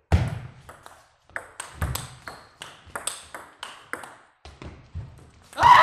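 Table tennis rally: the celluloid ball clicks off the bats and bounces on the table in a quick, irregular run of sharp ticks. A loud shout starts at the very end.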